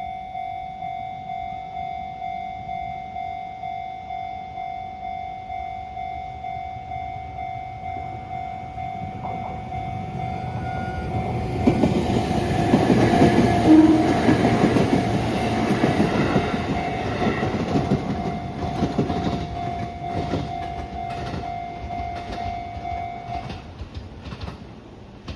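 Japanese level-crossing alarm bell ringing, a steady electronic ding repeating about one and a half times a second, while a train passes over the crossing with its wheels clattering, loudest in the middle. The bell stops shortly before the end as the crossing clears.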